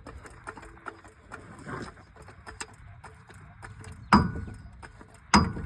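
Metal jack and handle clanking as a jack is set under a trailer axle: light clicks and rattles, then two sharp clanks with a short metallic ring, about a second and a half apart near the end.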